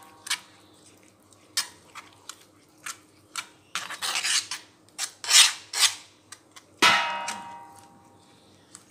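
Metal spoon stirring and scraping a thick paste in a pan, with irregular clinks and scrapes against the pan. About seven seconds in the spoon strikes the pan with a ringing clang that dies away over about a second.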